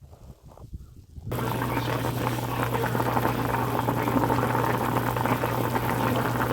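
Pot of soup boiling, a dense bubbling that starts suddenly about a second in, with a steady low hum underneath.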